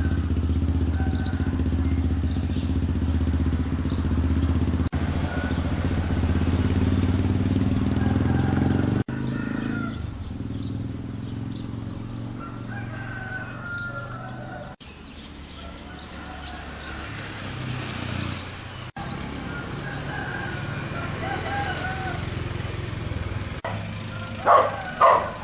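Village ambience across several cuts: a steady low hum, roosters crowing in the background, and a dog starting to bark in loud repeated bursts near the end.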